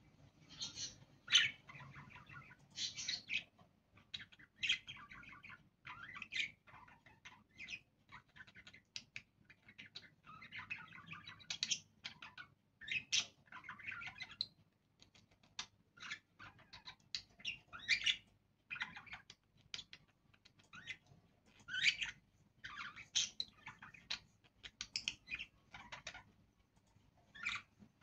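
Budgerigars chirping and chattering in an irregular run of short calls, some sharper and louder than the rest.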